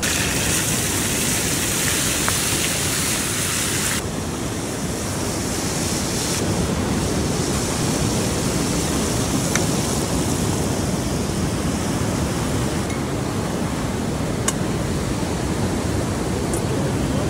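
Floured frog legs sizzling in hot frying oil in a metal pot, over the steady rush of flowing water. The hiss is brightest in the first few seconds, and two short clicks come later.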